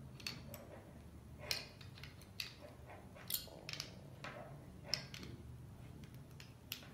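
Faint, irregular small clicks and scrapes of metal contact points being screwed tight into a plastic shock-collar receiver, turned with the collar's test lamp as a tool.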